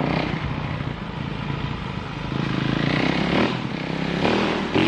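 Dirt bike engine running, its note swelling a couple of times as the throttle is worked during a test.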